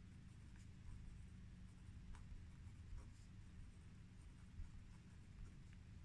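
Pen writing on paper: faint, irregular scratching strokes.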